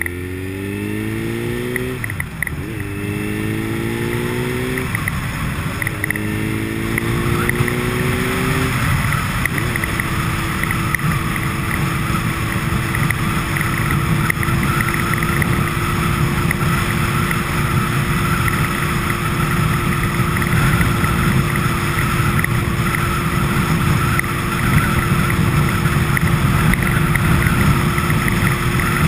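Motor vehicle pulling away through the gears, its engine pitch climbing and dropping back at each shift for about the first nine seconds, then cruising with a steady whine over road noise.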